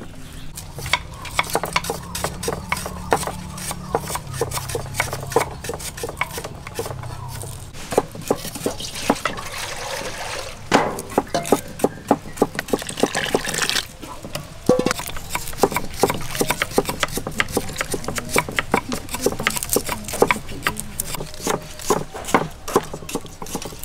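Hand food preparation: a dense, irregular run of sharp knife clicks and taps as lemongrass is sliced and shallots and turmeric are peeled, with a stretch of hissy rustling near the middle and wet handling of rice noodles in a basin of water near the end.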